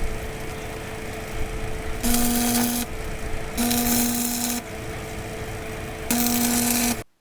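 Electric drill running steadily, with three louder spells of the bit biting into metal as holes are drilled. The sound cuts off suddenly near the end.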